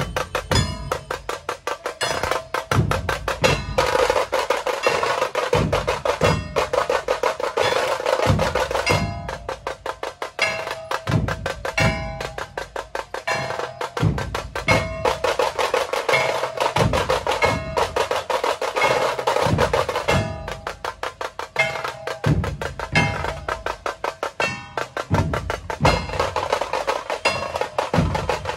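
A dhol-tasha troupe drumming: tasha drums play fast, sharp stick rolls over deep dhol beats that fall about once a second.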